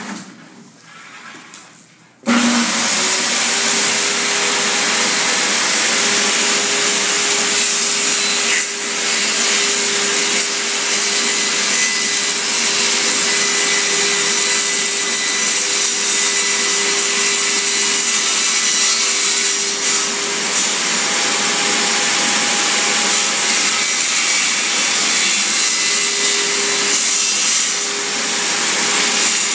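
Electric power tool switched on about two seconds in and running loudly and steadily with a constant motor tone, cutting into hardwood flooring.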